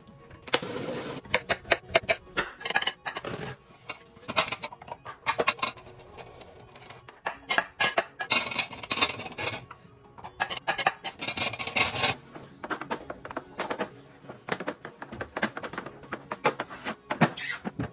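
Household items being handled: repeated clattering, knocks and rubbing of dishes and containers, like a fridge being emptied, wiped and restocked. Background music plays underneath.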